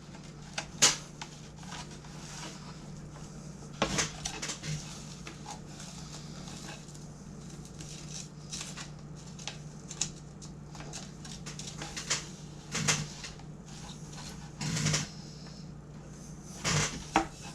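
Rubber glazing channel being pushed and worked onto the edge of a tempered safety-glass pane for a school bus window: scattered rubbing and handling noises with short knocks every few seconds, over a steady low hum. The rubber is a tight fit.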